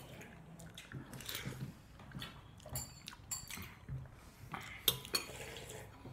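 Close-up eating of noodle soup: a metal fork clinking and scraping in a bowl, with a few short slurps and chewing between the clinks.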